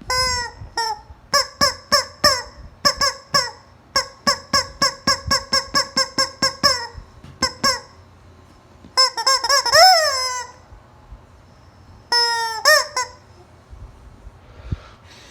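Rubber chicken squeak toy being squeezed over and over: a fast run of short honking squeaks, about three a second, then a pause, one longer drawn-out squawk that rises and falls in pitch, and two more short squeaks near the end.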